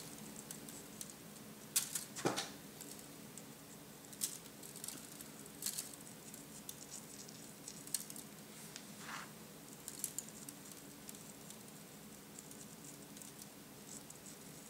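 Faint, scattered light rustles and small crackles as fingers handle and pinch the dry root branches and foliage of a model tree, over a faint steady low hum.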